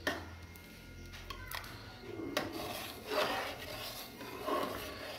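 A spoon stirring thick soup in an aluminium pressure cooker, scraping against the pot, with a few light clicks.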